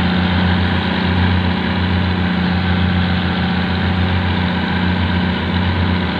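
Boat engine running steadily at an even speed, a low droning hum.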